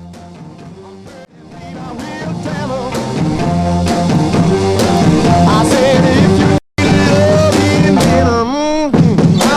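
Background song with a singing voice over a band, swelling up in volume about a second in and cutting out for a split second about two-thirds of the way through.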